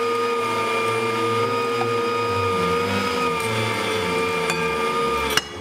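Electric meat grinder running steadily with a motor whine as it pushes minced meat out through its plate. The sound dips briefly with a click near the end.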